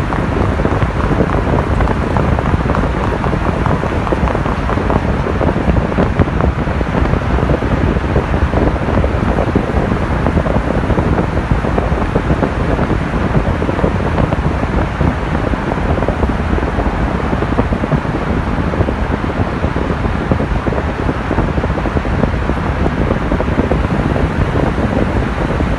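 Steady rush of wind and road noise from a van driving through a road tunnel, with wind buffeting the microphone.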